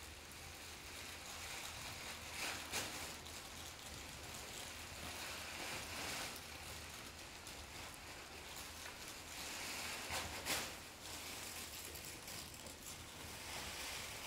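A faint, even hiss like rain or running water, with a few louder crackling rustles, one about three seconds in and a sharper one about ten seconds in, over a steady low hum.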